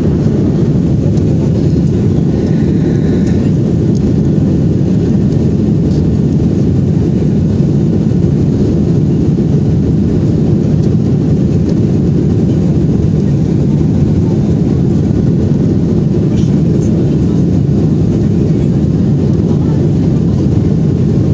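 Steady cabin noise of a Boeing 737-800 in flight: a constant low rush of engines and airflow, unchanging throughout.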